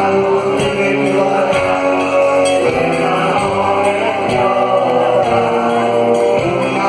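Rock band playing live: drums and guitars over a steady beat, with singing.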